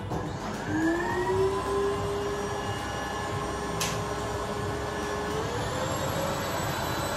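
Vacuum cleaner switched on, its motor whining up to speed over about a second and then running steadily. Its pitch rises slightly a little past halfway.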